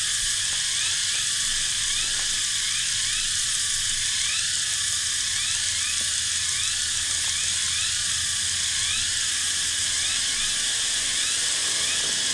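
A forest insect chorus: a steady, loud, high-pitched buzzing, with a short rising note repeated about twice a second.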